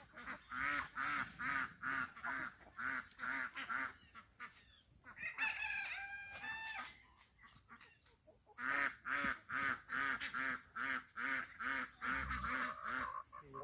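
Chickens clucking in quick, even runs of about three calls a second, with a rooster crowing once in a single held call about five and a half seconds in.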